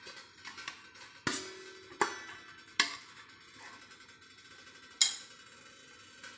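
Stainless-steel plates knocking against a steel steamer pot: four sharp metallic clinks at uneven intervals, each with a short ring. The last clink, about five seconds in, is the loudest.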